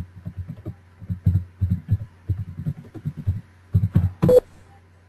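Computer keyboard being typed on: an uneven run of key clicks, a few a second, with two louder strokes near the end. A steady low electrical hum runs underneath.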